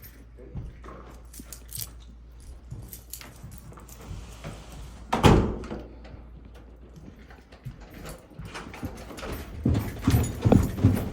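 A door being handled, with keys jangling and light clicks. One loud thud comes about halfway through, then a run of quick thumps near the end.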